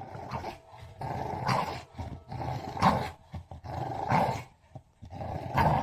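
A dog growling in five rough bouts of about a second each, one after another.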